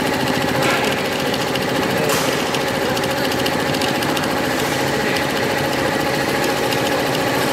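Industrial single-head embroidery machine with a cording device running, stitching down gold cord with a fast, steady rhythm of needle strokes.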